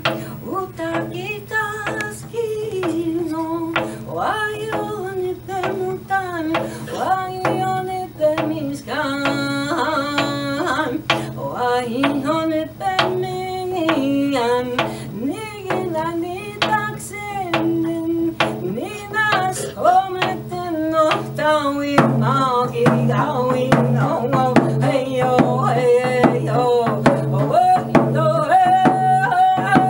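A woman singing a song to a steady beat on a hand frame drum; the music grows louder and fuller about two-thirds of the way through.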